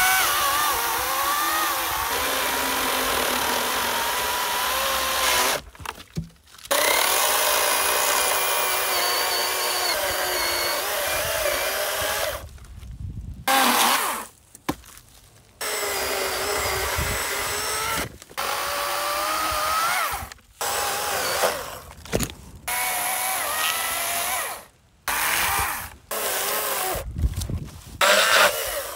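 40V battery-powered chainsaws, a Wild Badger Power and a Greenworks, cutting through pine logs: a steady electric motor whine with chain and wood noise, its pitch wavering up and down as the chain bites. The sound cuts off abruptly and restarts several times.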